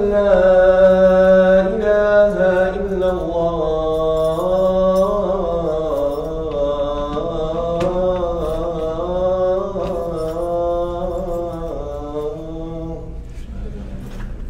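A man's solo voice chanting an Islamic religious chant: one long, ornamented phrase that wavers up and down in pitch for about thirteen seconds and fades near the end.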